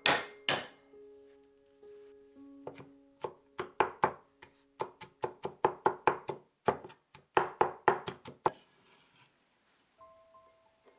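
Chinese cleaver chopping garlic on a wooden chopping board: a couple of heavy knocks at the start, then a run of quick chops, about three or four a second, that stops shortly before the end. Soft background music.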